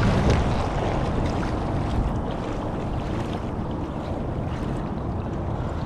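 Wind buffeting the microphone, with shallow water sloshing around a wading angler's legs.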